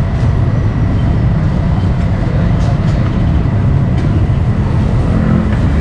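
Steady low rumbling background noise, with a few light clinks of metal utensils.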